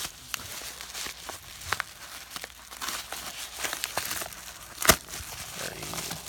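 Yellow padded paper mailer being handled and torn at by hand: irregular crinkling and crackling of the paper, with a sharp snap about five seconds in.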